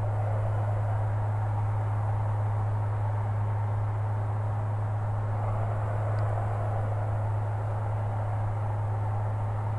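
Maule light aircraft's engine and propeller droning steadily, heard inside the cabin in flight, with a strong low hum under it.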